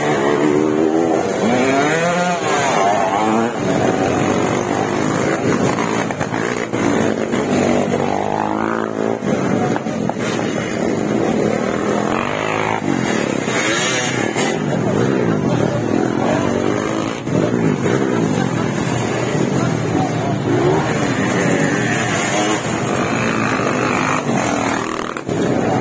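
Several motocross dirt bikes racing through a dirt-track corner, their engines overlapping and revving up and down in pitch as riders brake and accelerate out of the turn.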